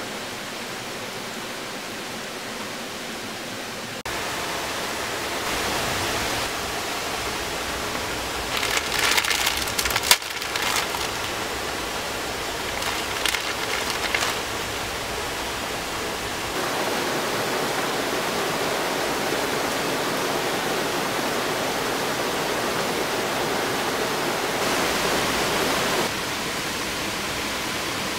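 Heavy rain pouring steadily, with a plastic ramen packet crinkling and tearing in a few short bursts, then a pot of ramen boiling on a portable gas stove.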